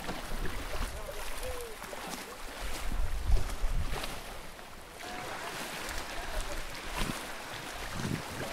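Wind buffeting the microphone outdoors, a low rumble that swells and eases, with a few scattered knocks.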